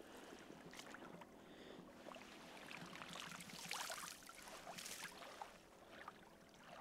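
Faint lapping and sloshing of small waves in the shallows around a landing net, a little louder around the middle.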